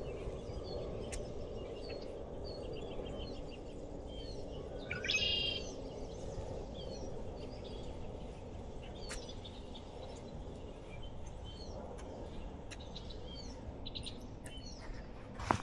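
Songbirds chirping, with many short high calls scattered throughout and a louder run of chirps about five seconds in, over a steady low outdoor rush.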